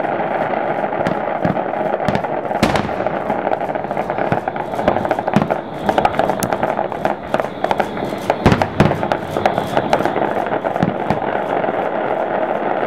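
Aerial firework shells bursting, with scattered sharp bangs and stretches of fine crackling over a steady background rush. The loudest bangs come about a fifth of the way in and as a close pair past the middle.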